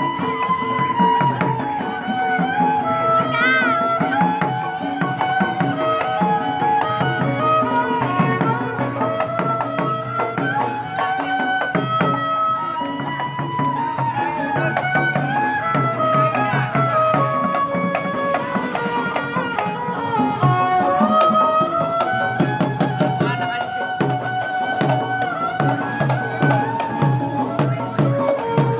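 Betawi ondel-ondel accompaniment music: hand drums and metal percussion keep a steady beat under a wavering, gliding melody line.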